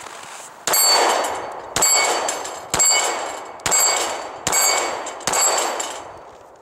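Six pistol shots from a Glock 42 in .380 ACP, about one a second, each answered at once by the ringing clang of a struck steel target. Each ring dies away until the next hit.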